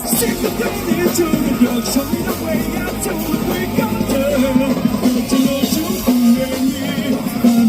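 Live rock band playing loud, with electric guitar and drums; the music cuts in again sharply after a split-second gap at the start.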